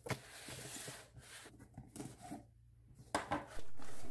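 Cardboard shipping box being cut and opened: a knife drawn through the packing tape, then the flaps pulled apart, with cardboard scraping and rustling and a sharp crackle about three seconds in.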